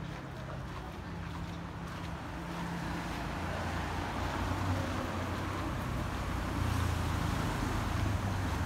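Road traffic driving past, with a van's engine hum growing louder about a third of the way in as it passes close.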